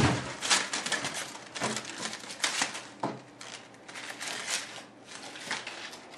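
Crumpled paper being handled and unfolded, crinkling in quick irregular crackles, busiest in the first few seconds.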